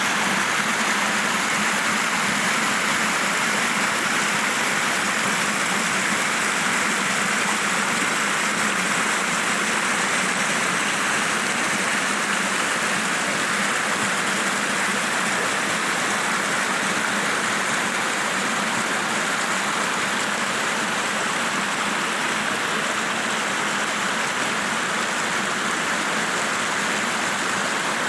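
Running water rushing steadily, like a stream over rocks.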